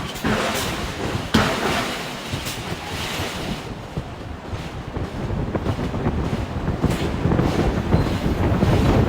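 Heavy forge-shop machinery rumbling, with a few scattered sharp metallic knocks, one sharper than the rest about a second and a half in. The rumble grows louder over the last few seconds.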